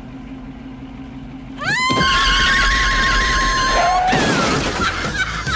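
A car's tyres squeal as it accelerates hard, the pitch rising and then holding, about two seconds in. About four seconds in comes a noisy crunch of metal as the car rams into another car.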